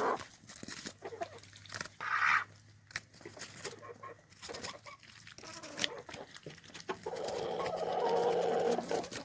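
Chickens clucking and pecking at treats, with many scattered light taps and a longer call near the end.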